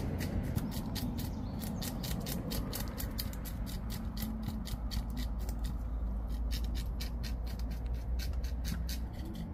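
A blade scraping the scales off a snapper over a plastic bucket: quick, rhythmic scraping strokes, about four a second, with a few short pauses.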